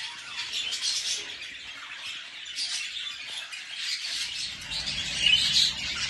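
Budgerigars chirping and chattering: a steady, busy mix of many high chirps and squawks.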